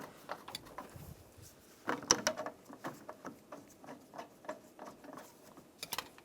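Light, scattered clicks and taps of small parts being handled as the two screws are set by hand into an interior door handle on a pickup's door, with a brief cluster of clicks about two seconds in.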